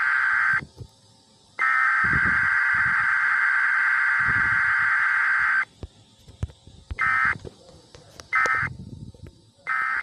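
Emergency Alert System digital data tones (SAME bursts) from a broadcast weekly test, harsh and buzzy. A burst cuts off about half a second in. After a one-second pause a four-second burst follows, then three short bursts about a second and a half apart near the end, the pattern of the end-of-message code.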